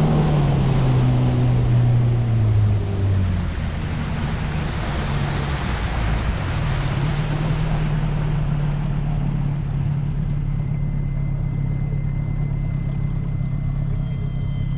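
Motorboat engine running on a river, its pitch dropping over the first few seconds and then holding steady, under a rush of wind and water that swells midway and then dies away.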